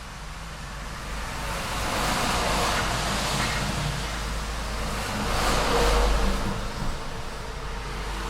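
City street traffic: vehicles passing one after another over a steady low rumble, each pass a rush of tyre and engine noise that swells and fades, the loudest about six seconds in.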